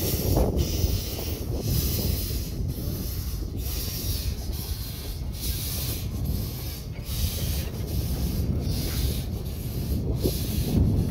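1925 Vulcan steam locomotive working slowly, its exhaust chuffing in regular hissing beats a little under once a second, over a low rumble with wind on the microphone.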